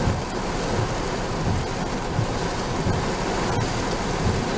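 Heavy tropical-storm rain pelting a car, heard from inside the cabin, while the windshield wipers sweep. A low rumble pulses about every two-thirds of a second under the steady hiss of the rain.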